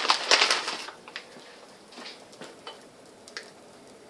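Kitchen handling noise while cooking pancakes: about a second of rustling and scraping, then a few light clicks and taps.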